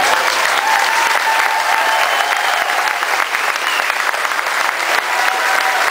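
Large crowd applauding steadily, a dense clapping with a few voices calling out over it.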